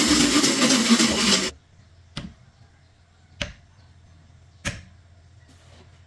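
Band saw running, its steady machine noise stopping abruptly about a second and a half in. Then three sharp wooden knocks about a second and a quarter apart, as small wooden joint pieces are set down one by one on a wooden board.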